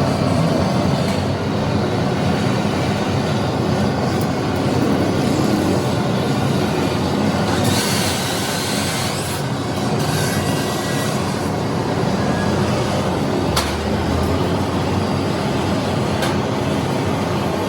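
Steady loud mechanical rumble with a hiss over it, like heavy workshop machinery running. There is a brief burst of stronger hiss about eight seconds in and a couple of sharp clicks later.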